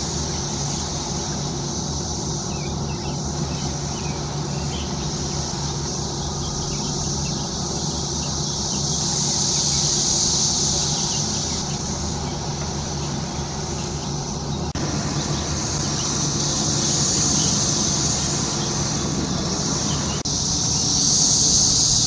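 Chorus of Brood X periodical cicadas: a dense, high, steady buzzing that swells and fades in slow waves.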